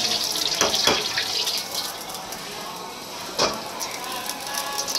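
Water sloshing and splashing in a steel wok as it is rinsed with a metal ladle. The ladle knocks against the wok twice near the start and once, more sharply, about three and a half seconds in.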